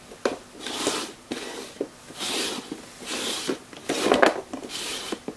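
Upturned plastic pots being slid and shuffled around on a flat board, in a series of short scrapes with light knocks as they are set down.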